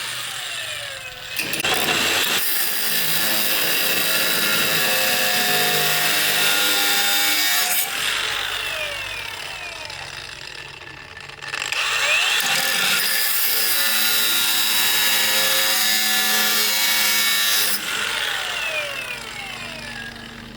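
A power tool runs in two bursts of about six seconds, working against material with a rasping, sawing sound. After each release its motor spins down with a falling whine.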